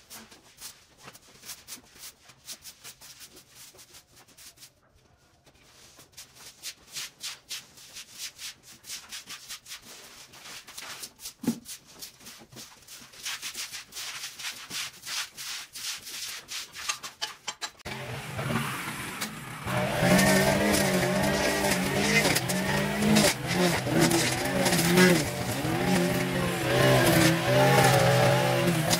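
Scattered light clicks and scrapes, then about two-thirds of the way in a small engine comes in loud and runs on, its pitch wavering up and down.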